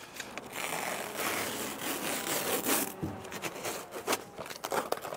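Red-striped peel ply fabric being ripped off cured epoxy over foam core blocks: a long rasping tear for the first few seconds, then shorter tugs with small clicks.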